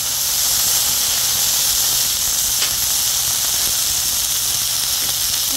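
Green beans frying in oil on a hot Blackstone flat-top griddle, sizzling with a steady hiss. There is one small click a little past the middle.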